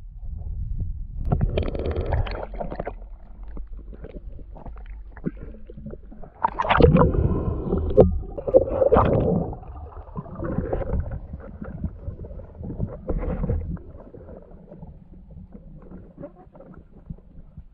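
Muffled underwater noise of a swimming spearfisher: irregular water rushing and gurgling with a few sharp knocks, loudest about a second in and again from about six to nine and a half seconds in.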